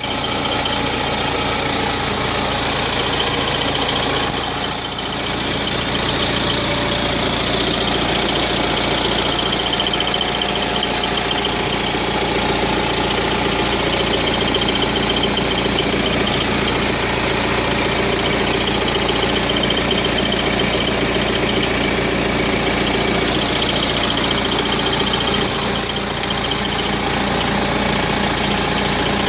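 BMW 320d E90's four-cylinder diesel engine idling warm, with an undiagnosed extra noise over its running that is most prominent at idle. The level holds steady apart from a brief dip about five seconds in.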